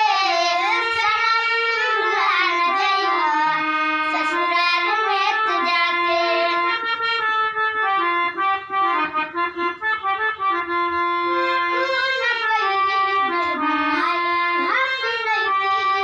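A hand-pumped harmonium playing under two girls singing a Bhojpuri jhareliya folk song. The singing drops out for a few seconds in the middle while the harmonium plays on in short repeated notes, then the voices come back.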